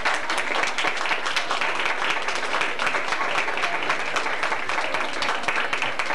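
An audience applauding, many hands clapping at once at an even level.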